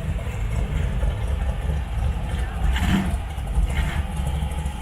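Car engine idling, a steady low sound with brief higher-pitched sounds about three seconds in.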